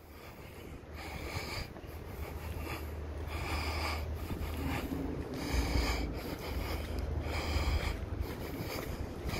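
Steady low rumble of road traffic on the road overhead, with wind on the microphone. Over it, a breath of the person filming hisses about every two seconds.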